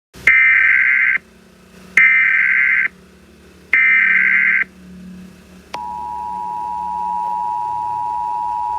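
Emergency Alert System tones: three short, harsh bursts of the SAME digital data header, then, about 6 seconds in, the steady two-tone attention signal starts and holds.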